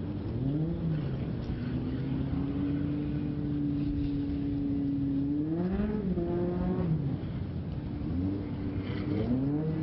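Off-road race car engine revving: it climbs, holds a steady high pitch for several seconds, then rises and falls again, with another climb near the end.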